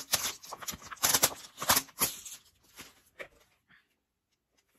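Plastic packaging crinkling and rustling in irregular crackles as a plastic seal strip is peeled and pulled off a toy capsule egg. The crinkling thins out about three seconds in and gives way to silence for the last second.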